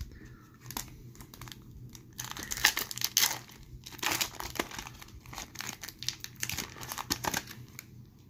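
Foil wrapper of a hockey card pack crinkling and tearing as it is ripped open by hand. It starts about two seconds in, is loudest around the three- and four-second marks, and dies away near the end.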